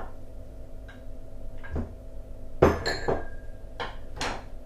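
Butter being scraped from a small bowl into a stainless steel mixing bowl with a utensil: a scattered series of clinks and knocks of metal against the bowls, the loudest about two and a half seconds in, followed by a brief ring.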